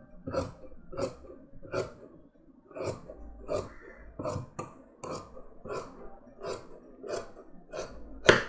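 Large tailor's shears cutting through folded fabric: a steady run of short snips, about one and a half a second, the loudest one near the end.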